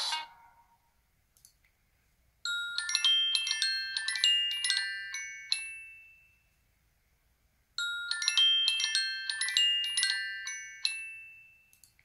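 LG Q7 smartphone ringtone: a short melody of quick, bright chiming notes, played twice with a pause between. Each phrase rings out and fades away.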